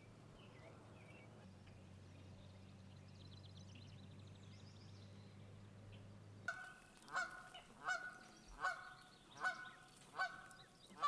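Canada goose honking, a series of about seven honks a little under a second apart, starting about six and a half seconds in. Before that there is only a faint low hum with faint high chirps.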